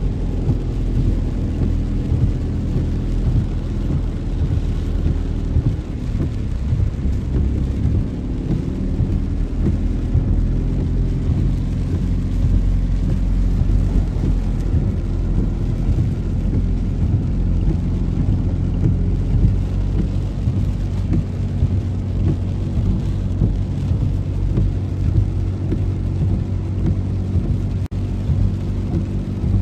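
Heavy thunderstorm rain mixed with vehicle engines on a flooded road, a loud, steady low rumble with no breaks.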